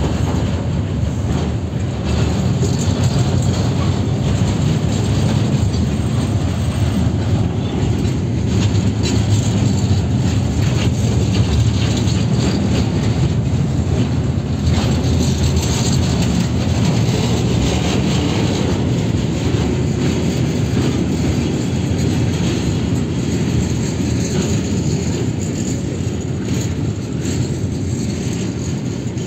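Empty railway flat wagons rolling past during shunting: a steady low rumble of steel wheels on the rails, with scattered light clicks.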